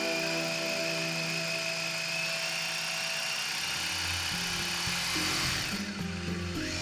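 Electric drill boring fixing holes into a wall, its motor whine rising slowly in pitch as it runs. Near the end the whine drops away and then picks up again as the trigger is eased and squeezed. Background music plays underneath.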